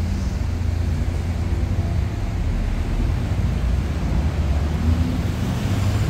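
Steady outdoor city background: an even rumbling noise, heaviest in the low end, with no distinct events.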